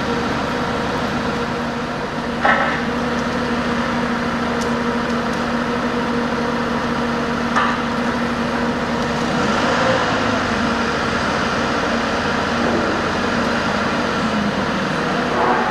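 Heavy-haulage truck's diesel engine running steadily with an even hum, and two sharp knocks: one about two and a half seconds in, another about five seconds later.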